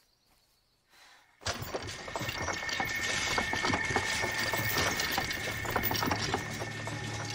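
Near silence, then about a second and a half in a dense, continuous crackling and clicking starts suddenly, with a steady high tone beneath it.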